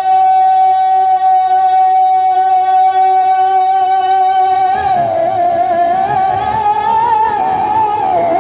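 A man's singing voice reciting a devotional Urdu poem (manqabat) through a stage microphone. He holds one long, steady high note for about five seconds, then breaks into wavering, ornamented turns of pitch.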